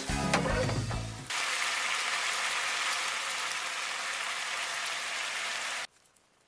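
Background music with a beat for about the first second, then it stops and a steady hiss of pork and soy-based sauce sizzling and bubbling in a frying pan as the sauce is reduced. The hiss cuts off suddenly near the end.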